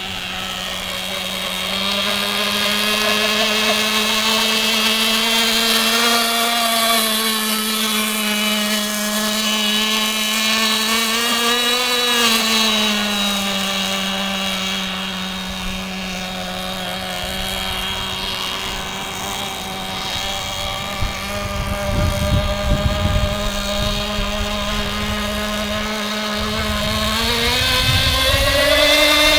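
Radio-controlled nitro boat's small glow-fuel engine running at speed across the water: a steady buzz whose pitch swells about 12 seconds in, then rises again near the end. Wind buffets the microphone in the second half.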